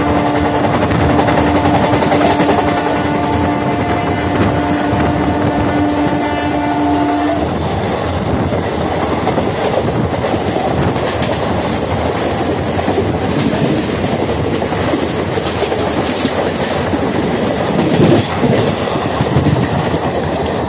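A train horn sounds a steady multi-note chord and cuts off abruptly about seven seconds in, over the continuous rumble and wheel clatter of two trains running side by side. An express's coaches pass close alongside the moving local train the sound is taken from.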